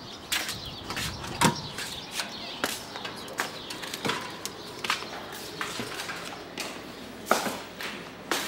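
Footsteps and knocks of people walking in through a doorway, an irregular run of clicks and taps with a couple of louder thumps, one about one and a half seconds in and one near the end.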